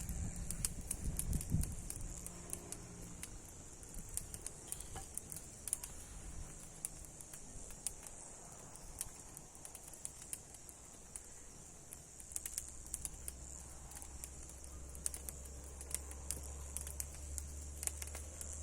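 Irregular small crackles and clicks of a wood fire burning, over a steady high hiss; a low steady hum sets in about two-thirds of the way through.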